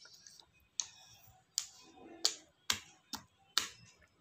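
A baby's lips and tongue smacking while sucking on a green orange segment: six sharp wet clicks about every half second.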